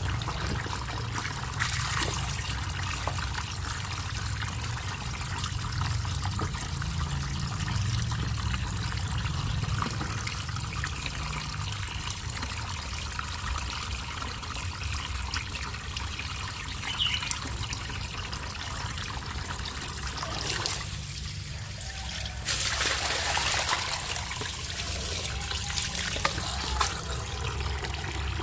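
Water trickling and splashing continuously, with small clicks and knocks throughout. The splashing gets louder for a second or two about three-quarters of the way through.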